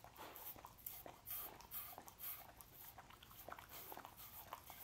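Dog eating sausage off a wooden board: a quick, irregular run of small wet mouth smacks and clicks.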